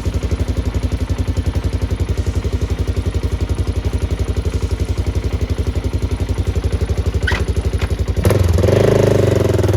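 1989 Yamaha XT350's single-cylinder four-stroke engine idling with a steady, even beat. About eight seconds in, music with drums and guitar comes in over it.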